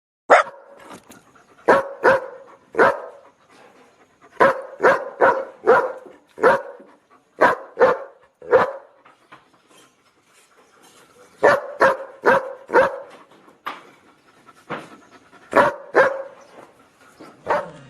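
A dog barking: about twenty short, sharp barks in quick runs of two to four, with pauses of a second or two between runs.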